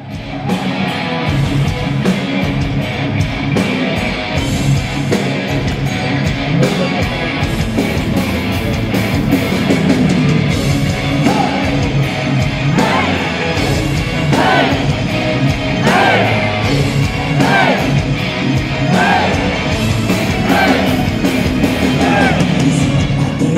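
Heavy metal band playing live: distorted electric guitars, bass and a steady drum beat. From about halfway through, a repeating melodic figure comes in, rising in pitch about every second and a half.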